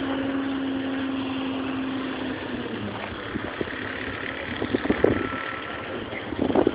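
Diesel semi-truck hauling a shipping container driving past, its engine running with a steady note that drops in pitch about two and a half seconds in as it goes by. A few crackling knocks come near the end.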